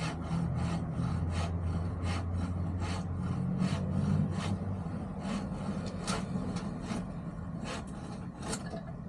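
Hand tool worked back and forth on wood in quick, even strokes, about three a second, slowing and spacing out in the second half. A steady low hum runs underneath.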